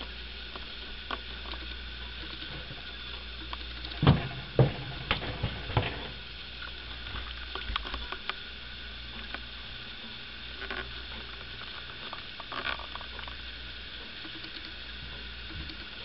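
Handling noise: a cluster of sharp knocks and clicks a few seconds in, then scattered lighter clicks, over a steady hiss and low hum, as hands and the camera move against a wooden clock case.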